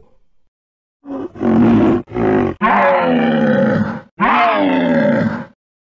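Dinosaur sound effect of a Euoplocephalus (an armoured ankylosaur) calling: about a second of silence, then a run of about five throaty calls that grow longer, the last two sliding down in pitch.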